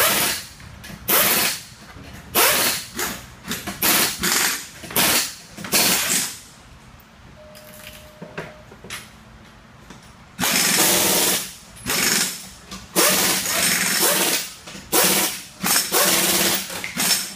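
Pneumatic impact wrench running in short, loud, repeated bursts. It pauses for about four seconds midway, then resumes with longer bursts.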